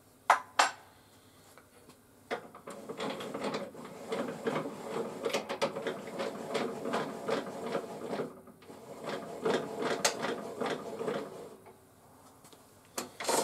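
Two sharp clicks as the zero-clearance throat insert is locked in. Then the blade-raising mechanism of a HiKOKI C3610DRJ table saw is cranked by hand, a steady rhythmic whirring rasp for about nine seconds with a brief pause partway, as the blade climbs.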